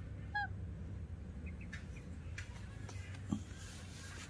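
Newborn baby monkey giving one short, high squeak with a slight falling pitch.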